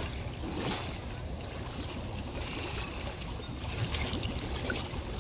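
Koi crowding and thrashing at the surface of a pond, splashing and slurping water in irregular small splashes, over a steady low rumble.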